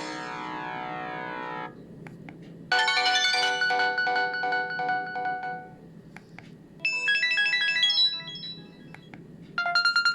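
Samsung GT-E1200 mobile phone playing its built-in ringtones one after another: four short synthesized melodies, each cut off after one to three seconds, the last a fast pulsing beep tune starting near the end. Faint clicks fall in the gaps between them.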